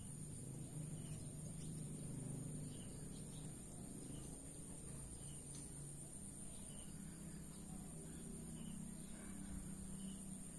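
Quiet backyard ambience: a steady high-pitched insect trill, like crickets, with faint chirps about once a second and a low steady hum underneath.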